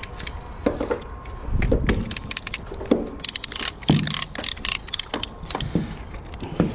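Steel strapping band and a hand strapping tool being handled: a run of irregular sharp metallic clicks, taps and rattles.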